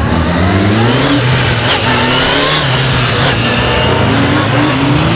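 Police motorcycle engine revving up and easing off over and over, its pitch climbing in a series of short rises as the throttle is worked through tight corners.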